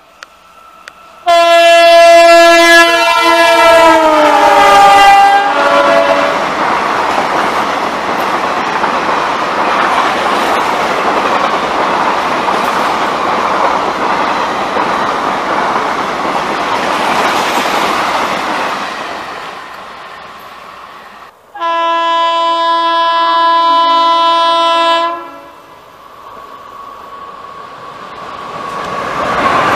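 Indian Railways locomotive horn blaring as an express runs through at speed, its pitch dropping as the engine passes. The coaches then rush by for about fifteen seconds. A second, steady horn blast of about three seconds comes from another approaching train, and its rumble builds near the end.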